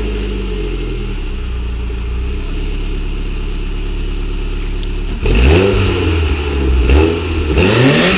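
Toyota MR2 Turbo's 3S-GTE turbocharged four-cylinder engine, just started, idling through its exhaust for about five seconds. Then it is blipped several times in quick succession, each rev rising and falling.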